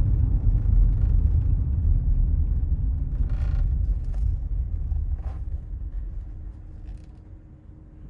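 Low in-cabin road and drivetrain rumble of a 2009 Chevy Tahoe Hybrid slowing down, fading away over the last few seconds as the truck comes to a stop and the engine shuts off in auto stop.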